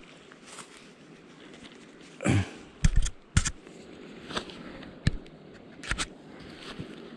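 Handling noise on the camera: a few short knocks and bumps, several close together around the middle, over a steady hiss of flowing river water.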